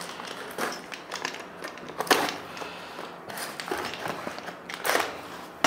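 A small knife cutting along the edge of the board lid on an aluminium foil takeaway tray: scratchy scraping and foil crinkling, with a few sharper strokes.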